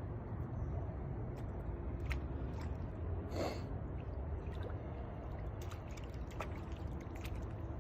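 Small splashes and drips of a stick being poked in shallow creek water, with scattered light clicks and one louder splash about three and a half seconds in, over a steady low rumble.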